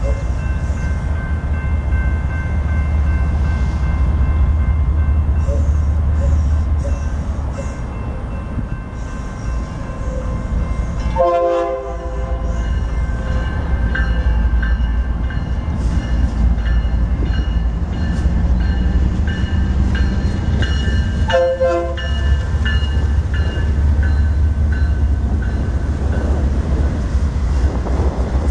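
BNSF freight train's diesel locomotives approaching and passing with a steady low rumble. Two short horn blasts come about eleven seconds in and again about ten seconds later.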